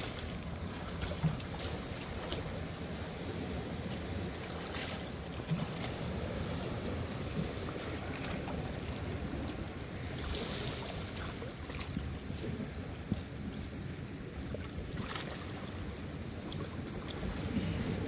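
Steady wind rumbling on the microphone by a calm river, with a few brief knocks and rustles scattered through it.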